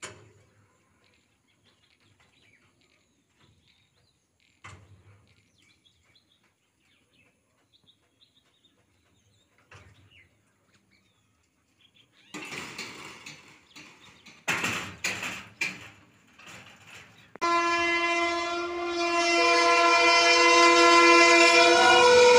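Indian Railways WAP-7 electric locomotive sounding a long, loud, steady air horn as the express train approaches, the pitch dipping slightly near the end as it comes by. Before that, about halfway through, a few seconds of rushing noise and knocks.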